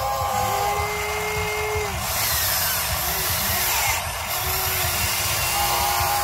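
Huina 580 RC excavator's electric motors running with a steady whine as the arm and bucket work the soil, the pitch dipping and shifting with the load.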